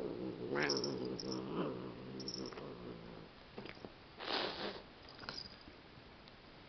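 A cat's long, low warning growl lasting about three seconds, then a short hiss a little past four seconds in.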